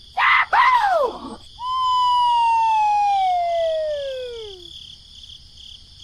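Cartoon sound effects: two quick squeaky chirps that rise and fall, then a long whistle that slides steadily down in pitch for about three seconds, like a falling slide whistle.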